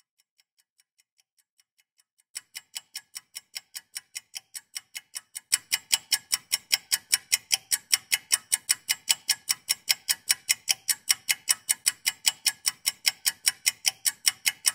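Steady clock-like ticking, about four ticks a second. It is faint at first, louder from a little over two seconds in, and louder and fuller again from about five and a half seconds in.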